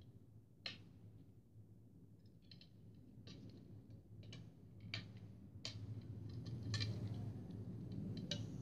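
Irregular light clicks and taps, roughly one a second, over a steady low hum that grows louder in the second half.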